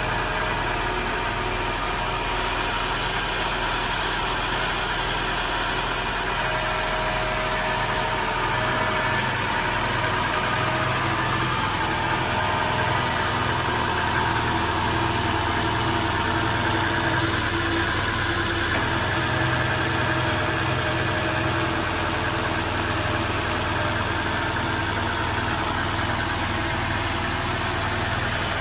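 1992 Citroën XM's 121 hp engine idling steadily.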